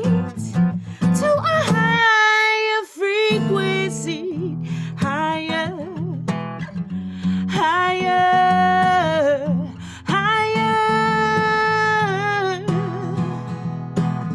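A woman singing long, wavering held notes over a strummed acoustic guitar. The guitar drops out for about a second, starting about two seconds in.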